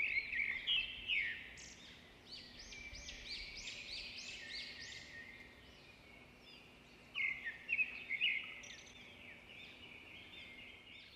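Songbirds chirping in runs of short, arching whistled notes. They fade almost to nothing around the middle and return in a brighter burst about seven seconds in.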